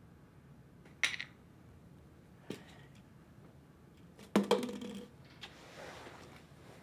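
A few sharp clicks and knocks of small hard objects being handled and set down in a small room, the loudest a rattling clatter of several clinks about four and a half seconds in.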